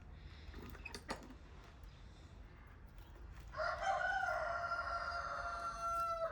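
Rooster crowing: one long call starting about three and a half seconds in, held at a steady pitch and cut off suddenly. A couple of faint clicks come about a second in.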